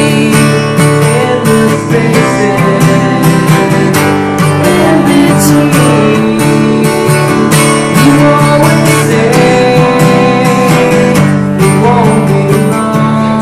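Music led by strummed acoustic guitar, with a steady rhythm of strokes throughout.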